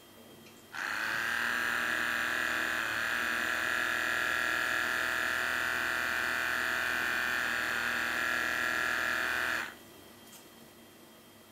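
Small DC motor spinning at thousands of revolutions per minute with a paper strip glued to its shaft gear: a steady high whir that starts suddenly just under a second in and cuts off suddenly near the end.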